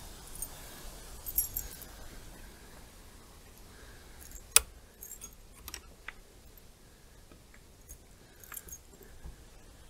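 Small metal parts jingling and clinking as the metal fittings on a wooden trap lid are handled by hand, with one sharp metallic click about four and a half seconds in.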